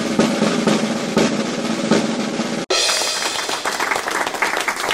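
Snare drum roll, the game-show suspense cue for picking a contestant from the audience, over a held low tone. About halfway through it cuts off abruptly and a choppier run of quick drum strokes follows.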